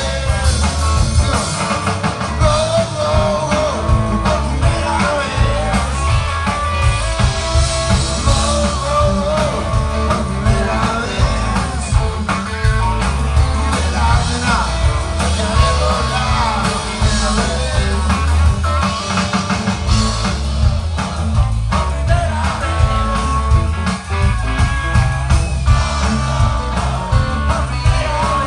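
Rock band playing live: electric guitars and drums with a man singing.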